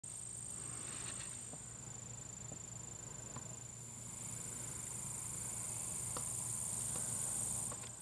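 Insects chirring in a steady, high-pitched chorus that grows louder about halfway through, with a few faint steps on a dirt garden path.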